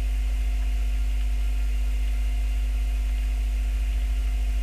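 Steady low electrical mains hum with an even hiss, the background noise of the narration microphone's recording line; no other sound.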